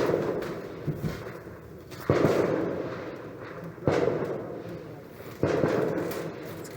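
Four distant booming bangs, one about every second and a half to two seconds, each with a rolling echo that dies away; a smaller knock comes about a second in.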